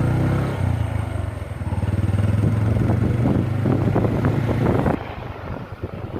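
Motor vehicle engine running steadily while on the move, becoming quieter about five seconds in.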